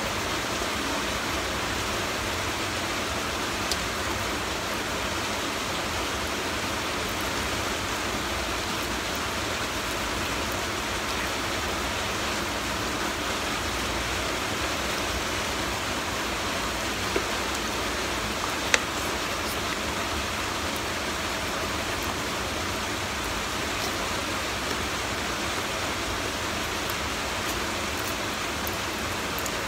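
A steady, even hiss like rain or running water, with a few faint clicks, the sharpest about two-thirds of the way through.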